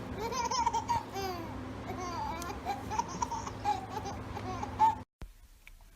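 A baby babbling and laughing in high squeals that rise and fall. It cuts off suddenly about five seconds in, and a few faint clicks follow.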